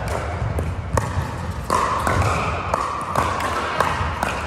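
Pickleball paddles striking the hard plastic ball and the ball bouncing on an indoor court: a string of sharp, irregular pops and clacks, several a second, in a large echoing hall.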